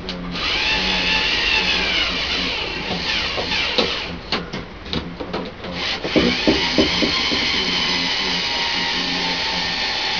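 Cordless drill-driver running in bursts, its motor whine rising and falling, while the top is fastened back onto a homemade table saw frame. There are clicks and knocks in the middle, and a steady run in the last few seconds.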